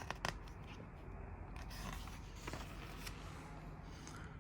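Glossy magazine pages being handled and turned: two short crisp clicks at the start, then faint paper rustles over a low steady hum.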